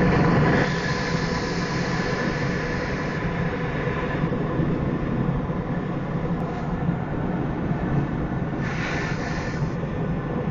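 Steady rush of air inside a glider cockpit on aerotow, with a low drone underneath from the tow plane's engine ahead. A brighter hiss swells for about a second near the end.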